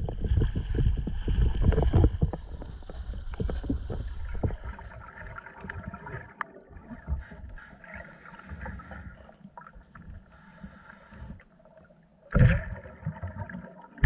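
Water sloshing and splashing against the camera at the waterline for the first few seconds, then muffled underwater quiet with scattered faint clicks. About twelve seconds in comes a short, loud gush of air bubbles.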